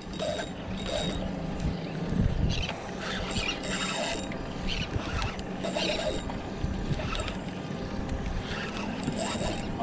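A steady low hum on a small fishing boat, with irregular short clicks and rustles of a spinning rod and reel being handled while a fish is played.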